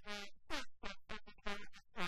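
A woman's voice talking in short, broken phrases.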